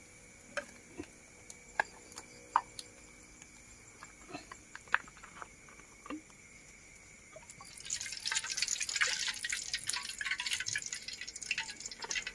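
Fish frying in hot oil: a few separate sharp pops, then about eight seconds in a dense crackling sizzle starts abruptly.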